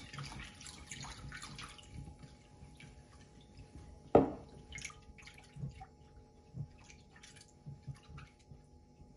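Water pouring from a drinking glass into a glass bowl of tomato stock, trailing off over the first couple of seconds, then a silicone spatula stirring in the glass bowl with soft scrapes and taps. One sharp knock about four seconds in, the loudest sound.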